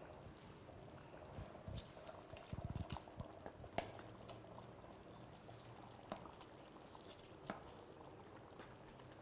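Half-cooked tehari rice simmering gently in a pot on low heat, with a spatula scraping and tapping against a metal pan as pieces of cooked goat meat are spooned onto the rice. Soft thuds come about two and a half seconds in, and a few sharp taps follow, the loudest about four seconds in.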